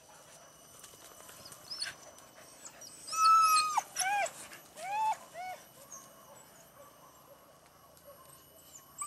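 Leashed hunting dogs whining: one long high whine about three seconds in that drops off sharply at its end, then several shorter rising-and-falling whimpers.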